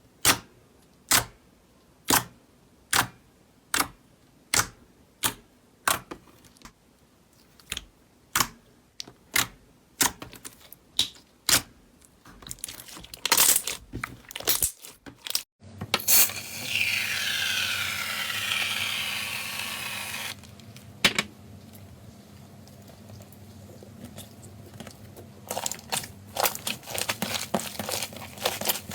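Slime being handled: a run of sharp pops about one a second, then a squishing swish, and near the end dense crackling.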